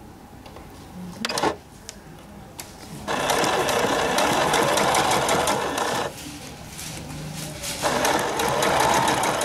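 Electric sewing machine stitching forward along an invisible zipper in two runs, about three seconds and then about a second and a half, with a pause between. A short knock comes before the first run.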